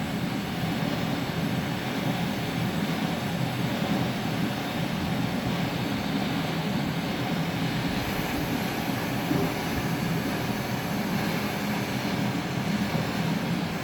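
Steady mechanical running noise with no rhythm, strongest in the low-middle range; a faint high hiss joins it about eight seconds in.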